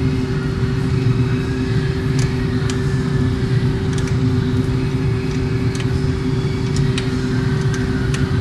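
A steady machine hum with a held low tone, with about a dozen small sharp clicks scattered over it as a headlight bulb and its plastic connector are handled and fitted into the headlight housing.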